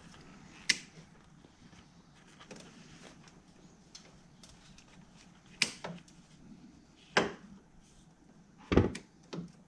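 Hand work on a car: a few sharp clicks and snaps from tools and parts, one about a second in and four more spread over the last four seconds.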